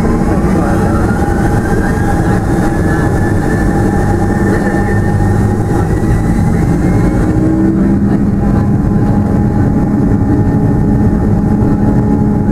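Cabin noise of a Boeing 757-200's Pratt & Whitney PW2037 turbofan at taxi power, heard through the fuselage: a steady engine drone with a whine that rises in pitch over the first seven seconds or so.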